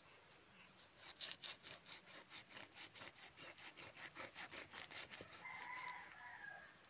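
A large knife scraping scales off a whole fish on a wooden block: faint, fast, rhythmic scrapes, about five a second, starting about a second in and stopping after about four seconds. Near the end a brief pitched call sounds in the background.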